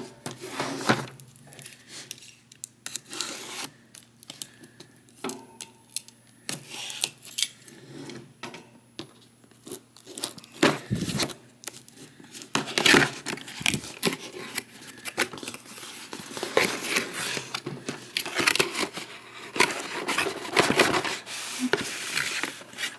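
Cardboard shipping box being opened and its packing handled: irregular tearing, rustling and crinkling of cardboard and paper with scattered sharp clicks, busier in the second half.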